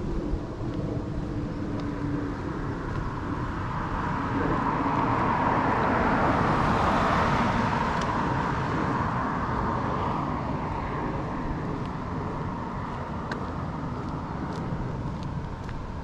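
A car passing by, its tyre and road noise swelling to a peak about six or seven seconds in and then slowly fading away.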